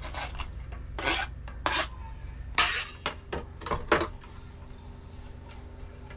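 A utensil scraping and clinking against a bowl as chopped spring onion is mixed into cured fish, in about eight short strokes over the first four seconds, then quieter.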